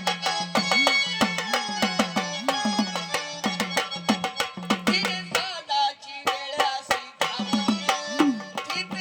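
Instrumental interlude of Marathi folk music. A hand drum plays a fast rhythm of sharp strokes and low strokes that bend in pitch, under a sustained melody instrument.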